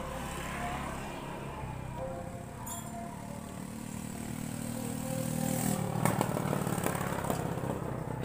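A motorcycle engine running in the background, getting louder from about two seconds in and loudest near the end, with a single light metallic click about a third of the way through.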